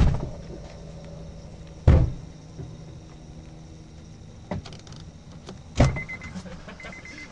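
Four heavy thumps, the loudest at the start and about two seconds in, with two more near four and a half and six seconds, over a steady low hum. A high beep sounds in short repeated runs near the end.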